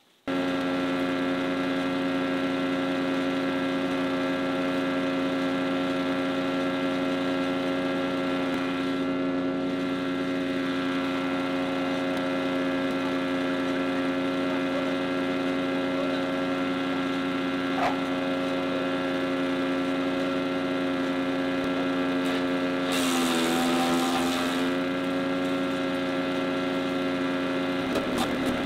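A wood chipper's engine running steadily at speed. About 23 seconds in, branches go through the chipper with a rush of shredding noise and the engine pitch dips briefly under the load. Near the end another load of branches starts through.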